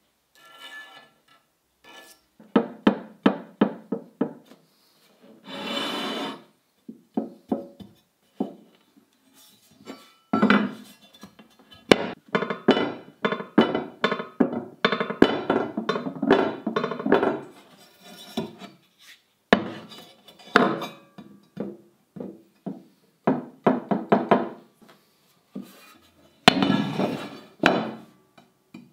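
Background music with plucked notes, mixed with knocks of a sandblasted steel cleaver blank being set down and moved on a wooden table.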